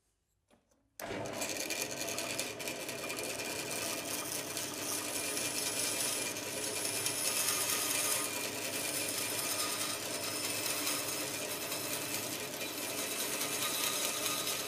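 Benchtop bandsaw running, its blade cutting into a timber board to make relief cuts for a tight curve. The steady machine noise starts abruptly about a second in and holds without a break.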